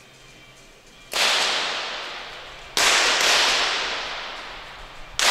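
Three shots from .22 free pistols, about a second and a half and then two and a half seconds apart, each sharp crack followed by a long echo dying away in the range hall.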